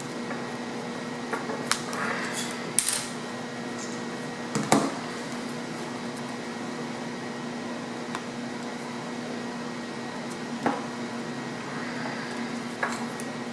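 A few short clicks and scrapes of a pry tool being worked along the edge of an iPhone's screen to separate it from the frame, over a steady electrical hum.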